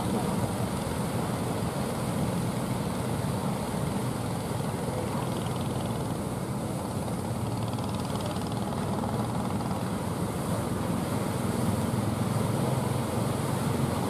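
Outrigger fishing boat's engine running steadily, mixed with the wash of surf and wind.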